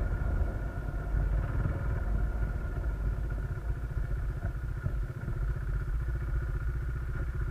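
Motorcycle engine running steadily under way, with an even low engine beat.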